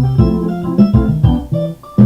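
Samsung SGH-J700 polyphonic MIDI ringtone played through a SoundFont synthesizer: a quick melody of short synthesized notes that drops away briefly near the end.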